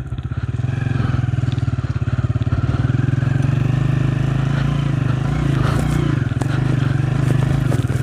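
Motorcycle engine running steadily while riding over a rough, dug-up road, with a few clatters and knocks around the middle.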